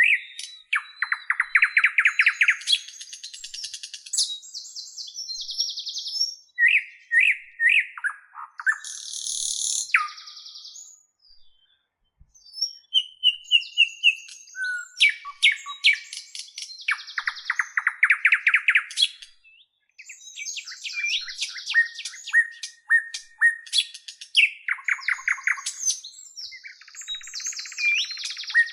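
A bird singing a long, varied song of fast trilled phrases, chirps, clicking runs and short whistled slides, broken by two brief pauses.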